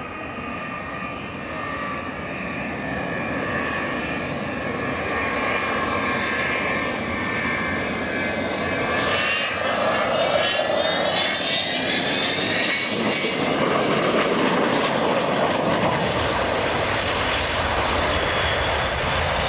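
Fixed-wing aircraft engines flying past, loud throughout. A steady high whine rises in pitch about halfway through and gives way to a broad rushing noise that stays loud to the end.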